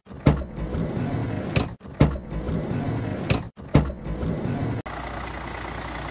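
Intro music: a short phrase repeating about every 1.7 seconds, each starting with a sharp hit. It cuts off abruptly near the end, leaving a steady low outdoor hum with a faint high whine.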